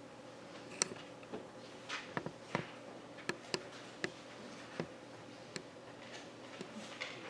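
Faint, irregular clicks and light knocks of altar items being handled and set down, about ten in all, the sharpest a little under a second in. A steady low hum runs underneath.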